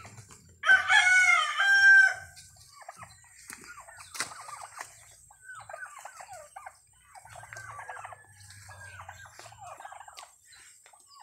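Flock of domestic turkeys calling: one loud, drawn-out call lasting over a second about a second in, then many soft, short, falling calls.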